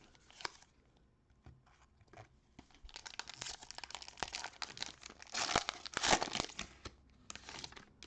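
Cellophane wrapper of a trading-card cello pack being torn open and crinkled. A few light clicks come first, then a run of crackling starts about three seconds in and lasts nearly to the end, loudest around six seconds.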